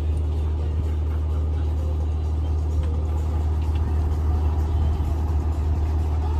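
Steady low engine drone of a moored tour boat idling, an even hum with no change in pitch.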